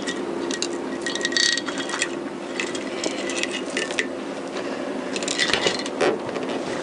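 Steel cam chain links and connecting rods clinking and rattling in irregular short clicks as the chain is worked off a Honda CBR1000F crankshaft, over a low steady hum.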